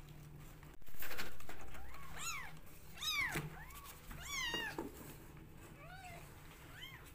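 Young kittens mewing for milk at bottle feeding: about five short, high mews that rise and fall in pitch. A sudden loud noise comes about a second in, before the mews.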